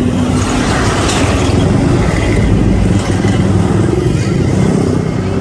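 An engine running steadily and loud, close by.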